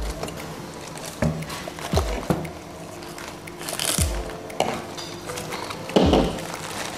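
A kitchen knife cutting the thick white stems of napa cabbage leaves on a wooden cutting board, with the blade knocking on the board several times and a loud knock about six seconds in, and leaves being handled in a plastic colander. Background music with a low regular beat plays under it.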